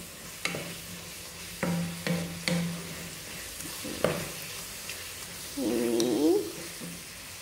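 Wooden spatula stirring and scraping thick beef serundeng around a nonstick pan, with a few sharp scrapes against the pan, over the sizzle of the mixture frying as its last liquid cooks off.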